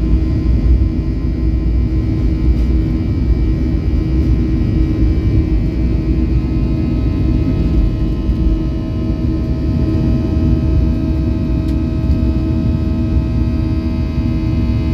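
Jet airliner's engines at takeoff thrust, heard from inside the cabin, through the takeoff roll and into the climb. There is a steady, loud low rumble with several steady whining tones above it.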